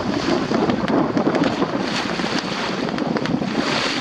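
Wind buffeting the microphone over the rush and splash of choppy water along the hull of a small sailing boat heeled over, close-hauled. There is a brief louder surge of spray just before the end.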